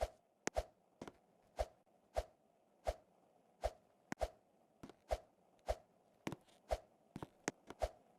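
A series of sharp knocks or taps, roughly two a second and unevenly spaced, some coming in quick pairs, each with a short ring.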